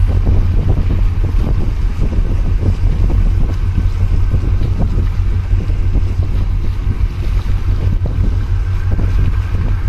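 Wind buffeting the microphone in a heavy, steady low rumble, with small waves washing and splashing against concrete breakwater blocks.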